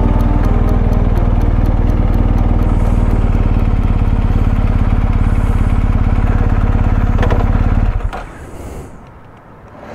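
Motorcycle engine running steadily under way, with strong low rumble and wind, cutting off suddenly about eight seconds in and leaving a much quieter stretch.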